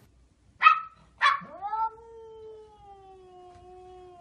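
A small Pomeranian-type dog yips sharply twice through a glass door, and a cat answers with one long yowl that falls slightly in pitch. Another sharp yip comes right at the end.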